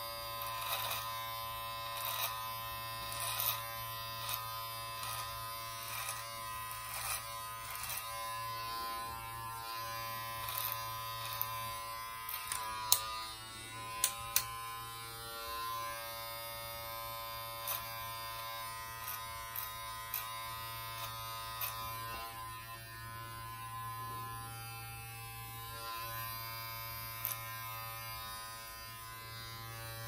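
Brio Beardscape cordless beard trimmer with a 6 mm guard buzzing steadily as it cuts through a short beard. Frequent short clicks break in as the blades meet the hair.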